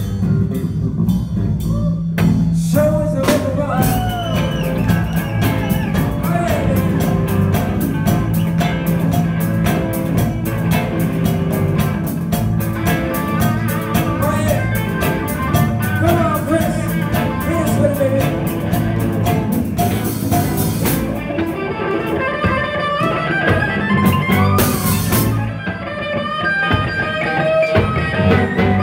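Live blues-rock band improvising: electric guitar lead lines with bending notes over a drum kit with cymbals and a steady low bass layer.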